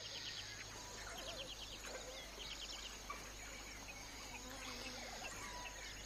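Dawn ambience in the African bush: several birds chirping and trilling, with quick runs of ticking calls, over a faint steady hiss.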